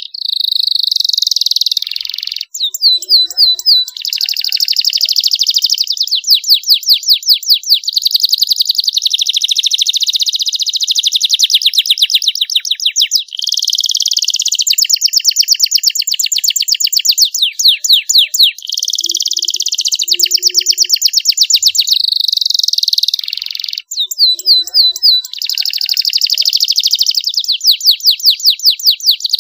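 Young domestic canary singing a long, continuous song of rapid trills and rolling phrases, with only brief pauses.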